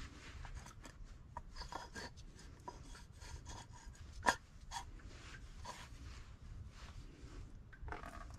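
Faint rustling and light clicks of gloved hands turning over a removed water pump and thermostat housing on a rag, with one sharper click about four seconds in.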